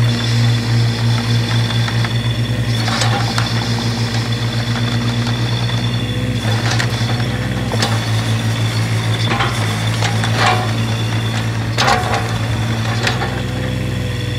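Kubota KX015-4 mini excavator's diesel engine running steadily while the machine is operated, its note shifting now and then under hydraulic load. Several short sharp noises come through at irregular intervals, about seven in all.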